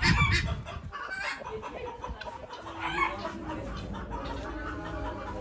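Chickens clucking in short, scattered calls, with a brief low rumble at the very start.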